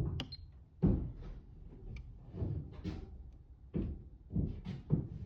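A run of irregular knocks and clunks, about seven in five seconds, from things being handled and set down while setting up an insulation resistance test on a socket.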